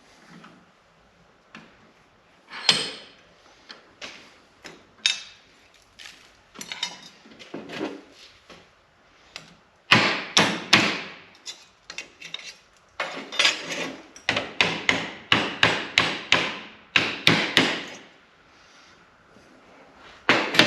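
Hammer striking a formed sheet-steel panel: scattered single blows, then a quick run of blows in the second half.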